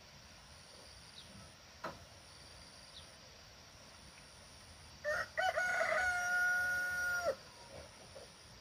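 A rooster crowing once, about five seconds in: a few short broken notes running into one long held note that cuts off abruptly after about two seconds. A single light knock comes about two seconds in.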